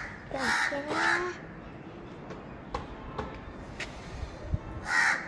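Crows cawing: two harsh caws in quick succession near the start and another near the end, with a few faint clicks in between.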